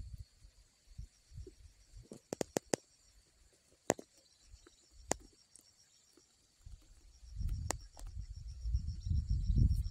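Quiet river-and-reed ambience: a faint, high, finely pulsing insect chirr throughout, with scattered sharp clicks and knocks, four in quick succession about two seconds in. A low rumbling fades early and returns about seven seconds in, growing louder.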